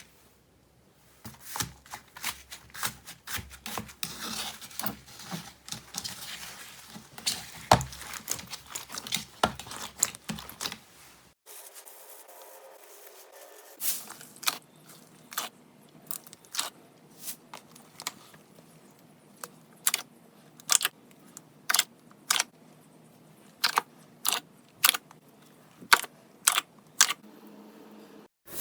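Slime being squished and pressed, giving a quick run of sharp crackles and pops; after a cut about eleven seconds in, slower single popping clicks.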